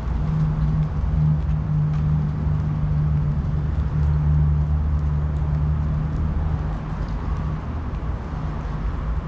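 Steady low motor hum over a low rumble, easing off after about seven seconds.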